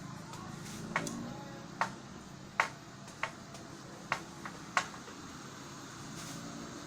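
A series of about seven sharp, irregularly spaced knocks or cracks, the loudest about two and a half seconds in, over a low steady engine hum.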